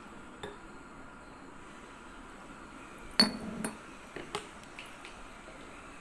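Glassware and dishes clinking: a handful of sharp knocks, the loudest a little over three seconds in with a brief ring, followed by a few quicker, lighter clinks.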